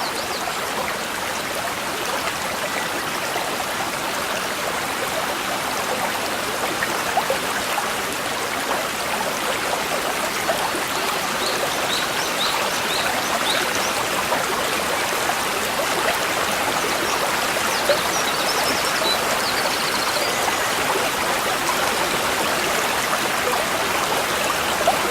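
A small stream babbling and trickling steadily over stones, with no music.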